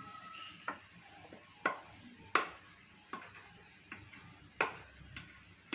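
A utensil stirring a thick potato-and-chicken masala in a pan, knocking sharply against the pan about eight times at an uneven pace, with faint sizzling underneath.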